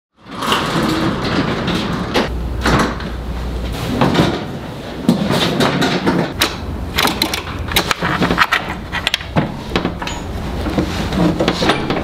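A run of irregular metallic clunks, clicks and rattles over a steady background noise, with a brief low hum a few seconds in.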